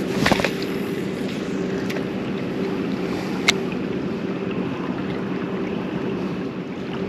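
Steady low mechanical hum over a wash of noise, with a short cluster of clicks just after the start and one sharp click about three and a half seconds in.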